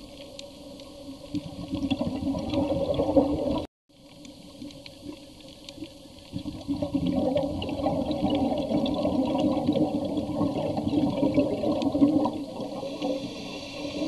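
Underwater rushing and bubbling water noise, in two long swells with a brief dropout about four seconds in.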